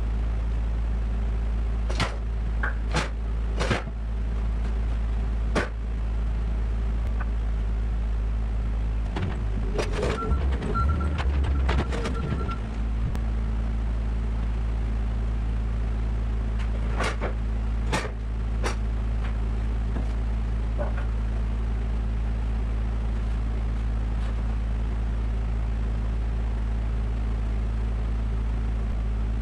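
An engine idling steadily, a low even hum. Sharp metallic knocks and clanks stand out over it a few seconds in, again in a busier patch around the middle, and in a quick pair later.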